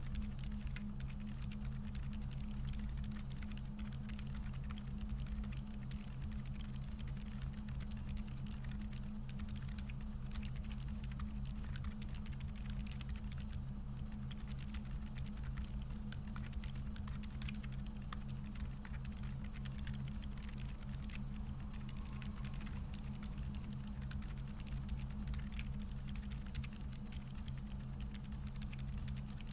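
Typing on a KBDFans Odin v2 full-size mechanical keyboard with lubed Boba U4 silent tactile switches on a polycarbonate plate, foam-dampened, with dye-sub Cherry-profile keycaps: a steady stream of quiet, muted keystrokes. A low steady hum runs underneath.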